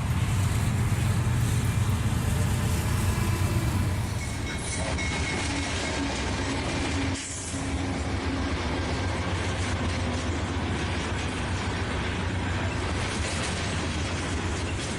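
Dubbed-in recording of a real full-size train running by, a steady rumble of the train on the rails. The recording changes abruptly about four and a half seconds in and dips briefly about seven seconds in, where clips are spliced together.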